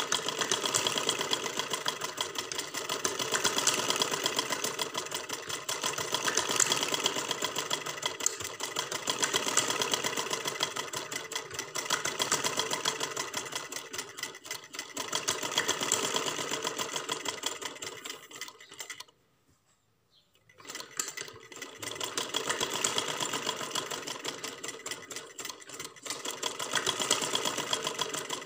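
Domestic sewing machine stitching along the edge of a fabric strip: a rapid clatter of needle strokes that swells and eases as the speed changes. It stops for about a second and a half about two-thirds of the way through, then runs again.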